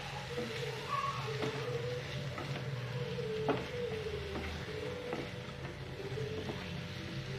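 Masala-coated chicken pieces sizzling in oil in a non-stick pan as a wooden spatula stirs and scrapes them, with scattered light knocks of the spatula against the pan over a steady low hum.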